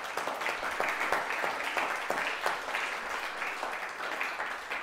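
Audience applauding, many people clapping together.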